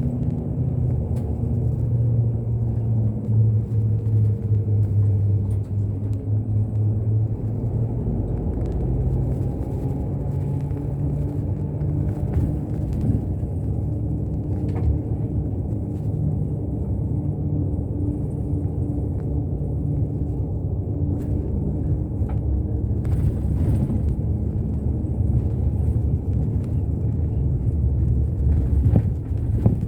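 Route bus running on the road, heard from inside the cabin: a steady low engine and road rumble whose engine note rises and falls a few times as the bus changes speed.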